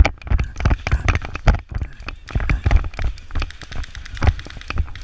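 A player's running footsteps, irregular thuds several a second.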